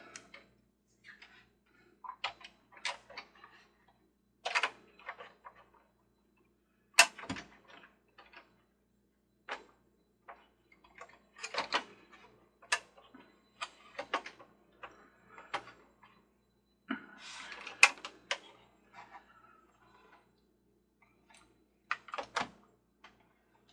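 Irregular clicks, taps and knocks of the plastic base and metal parts of a Mr. Christmas Ferris wheel being handled and fitted together, with a few sharper knocks about 7, 12 and 18 seconds in.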